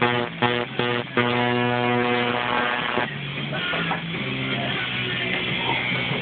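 Guitar-led music with a steady beat: a quickly repeated note in the first second, then a held note, and busier playing with changing notes from about three seconds in.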